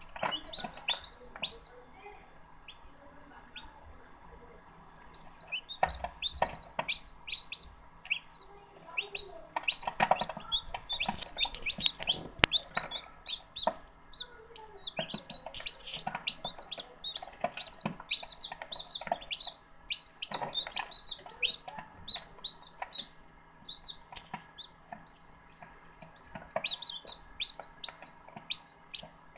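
Newly hatched chicks of the green-egg (Araucana-type) breed peeping: many short, high cheeps in quick runs, each sliding down in pitch, over a faint steady hum.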